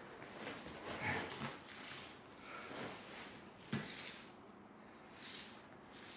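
A man breathing hard in irregular, snort-like surges, with a single sharp thump a little past halfway.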